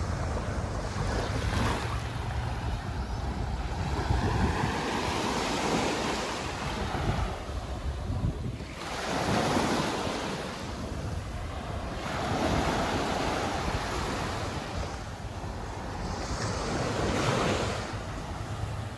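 Small sea waves breaking and washing up a sandy beach, the surf swelling and fading every few seconds. Wind buffets the microphone, most heavily in the first few seconds.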